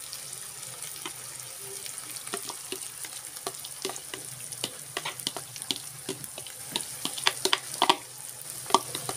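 Beaten eggs poured into a hot pan of oil-fried onions and chilli chutney, sizzling with a steady hiss, while a spoon scrapes the egg out of a plastic bowl with many short clicks and crackles that come more often in the second half.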